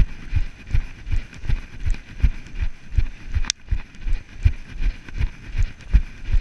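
A runner's footfalls on a grass path, heard as an even run of low thumps nearly three a second as the body-worn camera jolts with each stride. One sharp click about three and a half seconds in.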